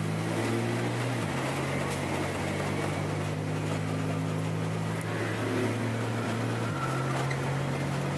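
Vehicle engine running steadily while driving, heard from inside the cab, with road noise and the heater's defrost blower on full. The engine note changes pitch about a second in and again near the end.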